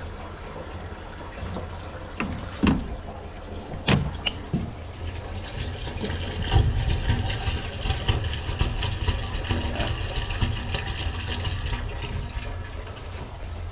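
A few sharp knocks from plastic soil-pipe fittings being handled, over a steady low rumble; a steady rushing noise joins about halfway in.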